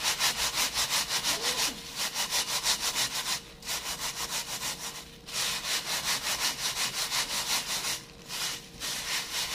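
Crushed graham crackers rubbed by hand against a stainless steel mesh sieve: a rapid rhythmic rasping scrape. It comes in runs broken by brief pauses.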